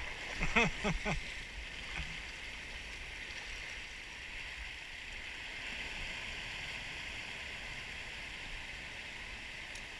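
Sea surf washing over and around shoreline rocks, a steady rushing wash of water. A voice calls out briefly about half a second in.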